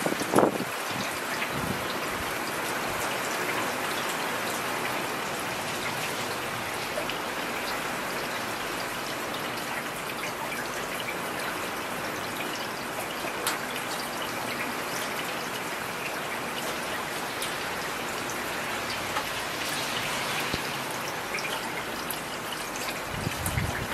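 Heavy rain falling steadily, with scattered sharp clicks of drops striking close by. There is a brief thump about half a second in.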